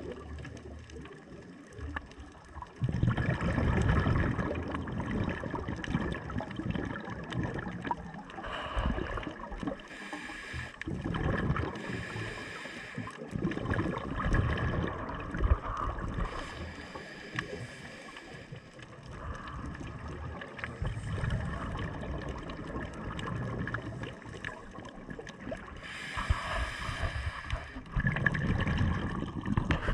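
Scuba diver's regulator breathing recorded underwater: exhaled bubbles gurgling in loud bursts every few seconds, over a faint steady tone.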